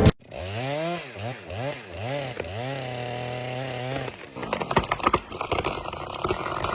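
Two-stroke chainsaw revved in several quick blips, its pitch rising and falling, then held at high speed. About four seconds in, the sound turns rough and crackling with many sharp clicks.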